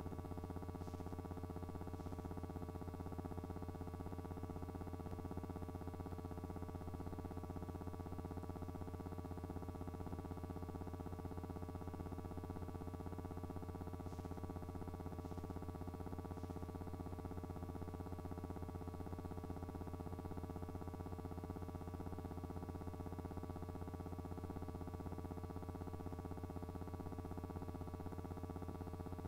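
Steady electrical hum and buzz: a low mains-type drone with a stack of unchanging tones above it, holding at one level throughout, with a few faint ticks.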